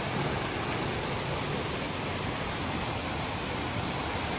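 Waterfall cascading over rocks, a steady rush of water.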